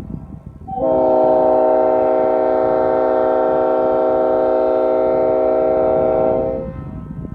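Parsippany-era Leslie RS5T five-chime train air horn, set up as RRO with its 44 and 55 bells reversed, sounding one long steady blast of about six seconds. All five bells sound together as a chord. A rushing noise is heard before the blast starts, just under a second in, and again after it cuts off near the end.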